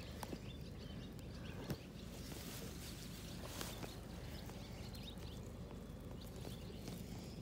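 Outdoor lawn ambience: faint bird calls over a steady low hum, with a few soft clicks and rustles, one about two seconds in.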